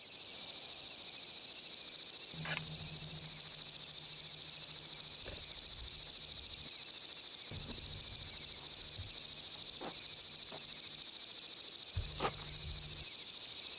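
A steady, high-pitched chorus of insects such as crickets, with a few faint clicks and a low hum that comes and goes.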